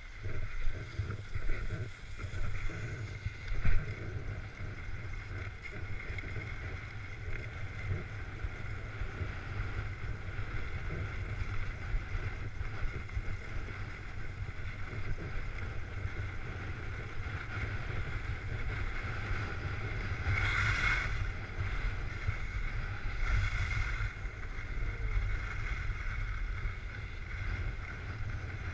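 Wind buffeting a GoPro's microphone during a downhill ski run, a steady low rumble with the hiss of skis sliding on packed snow. Two brief louder hissing swells come about two-thirds of the way through.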